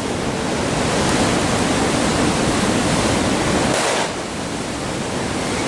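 Steady rushing noise of sea surf and wind on the microphone. Just before four seconds in, a Spanish cracker flash-powder banger goes off as a short, sharp burst that stands out only a little above the surf, after which the noise is slightly quieter.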